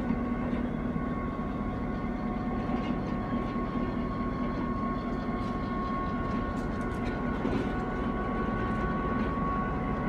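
EMD GP7 diesel locomotive's 16-cylinder 567 engine running steadily as the unit moves slowly through yard trackwork: an even drone with a steady high whine over it.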